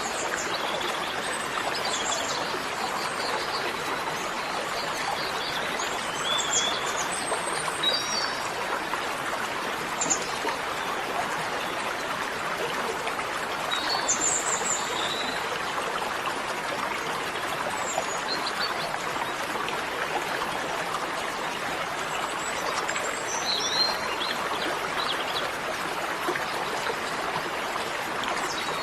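Steady rush of flowing stream water, with short high bird chirps coming now and then.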